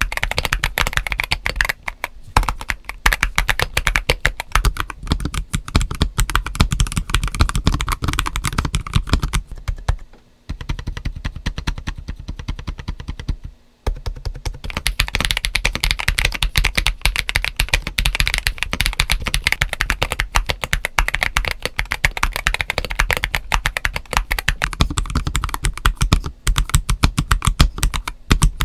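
Fast typing on a GAS67 mechanical keyboard, a dense run of key clacks, heard on several different builds in turn. These include Gazzew U4T switches under SA ABS keycaps, Gazzew Bobagum switches under o-ringed PBT keycaps, and a stock build with Akko Starfish switches. The typing breaks off briefly twice, about ten and about fourteen seconds in.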